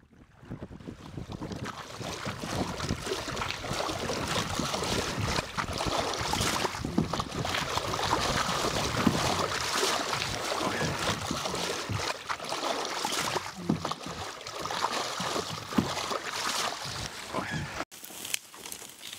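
Water rushing and splashing along the clinker-built wooden hull of an Oselvar rowboat being rowed, fading in at the start. The sound cuts out for an instant near the end, then carries on.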